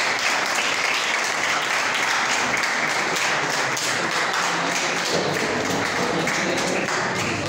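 Classroom audience of students applauding: a steady round of many hands clapping.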